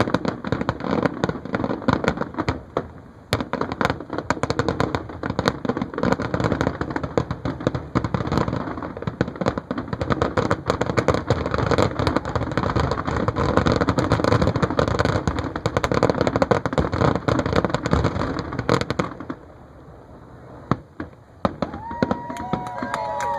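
Fireworks finale: a dense, continuous barrage of bangs and crackles that stops suddenly about 19 seconds in, leaving a few scattered pops.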